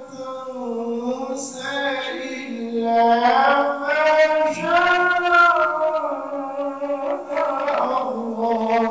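A single voice chanting melodically in the style of Islamic religious recitation, holding long notes that waver and slide in pitch, with short breaks between phrases.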